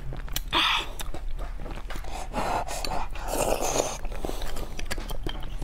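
Close-miked eating sounds of beef bone marrow: a few short wet slurping and chewing bursts, mixed with small clicks and scrapes of a metal spoon inside the bone.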